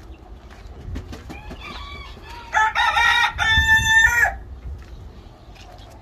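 A rooster crowing once, about two seconds long, partway through. It starts broken and ends on a long held note, after a few faint clucks.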